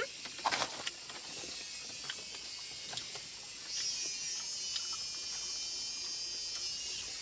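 Outdoor background with a steady high hiss that grows louder about four seconds in, and a few short clicks and knocks in the first second.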